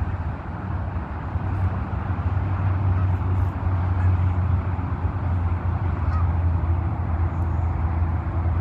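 A steady low rumble with a few faint, brief goose honks over it.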